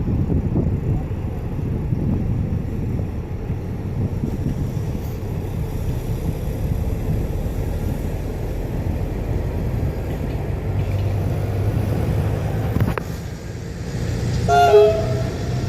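Train in a station: a steady low rumble and hum of the locomotive, with a sharp click about thirteen seconds in and a short horn toot near the end.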